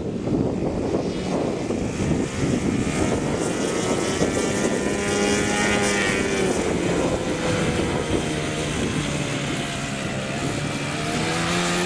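Engine of a radio-controlled model airplane running in flight, its pitch bending up and down as it passes and changes speed, with wind noise on the microphone at first.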